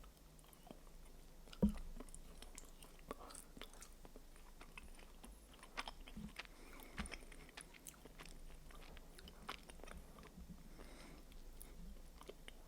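Close-miked biting and chewing of the milk-chocolate shell of a giant Kinder Surprise egg: soft crunches and small clicks, with one sharper, louder click about two seconds in.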